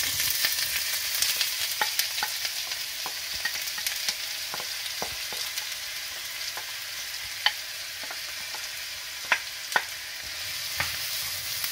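Chopped onions frying in hot oil in a wide non-stick pan: a steady sizzling hiss with scattered crackles, and a few louder pops about seven to ten seconds in.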